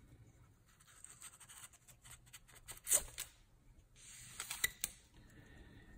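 Hoppe's BoreSnake being pulled through a 9 mm Glock pistol barrel from the chamber end, a faint rubbing swish in two strokes. A sharp click comes about three seconds in, and a few lighter clicks come near the end.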